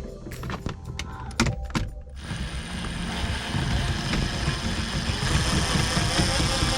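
Sharp clicks and knocks of parts being handled for about two seconds. Then, about two seconds in, a car engine starts being heard running steadily with a low rumble.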